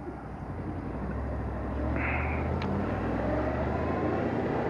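Honda VFR800's V4 engine running under way, with wind rushing over the helmet microphone; the engine and wind grow louder over the first two seconds. A short high chirp and a tick come about two seconds in.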